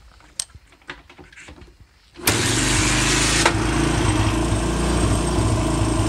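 Suzuki QuadSport 230 ATV's single-cylinder four-stroke engine starting abruptly about two seconds in and then idling steadily. It starts with the kill-switch lanyard clip back in place, which shows the kill circuit is open again. Before it starts, a few faint clicks come from handling the switch.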